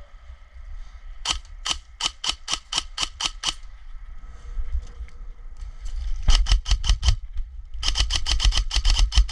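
Airsoft guns firing in bursts of sharp snapping shots: a string of about ten shots early on, a short burst about six seconds in, and a faster, denser burst near the end.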